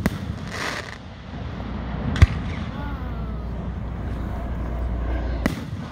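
Aerial firework shells bursting: three sharp booms, one at the start, the loudest about two seconds in, and one near the end, over a low steady rumble.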